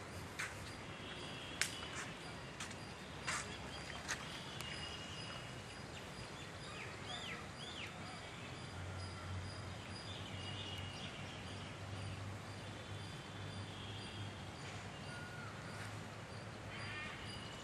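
Outdoor ambience: a steady background hiss with scattered short bird chirps and calls. A few sharp clicks sound in the first few seconds, and a low hum joins about halfway through.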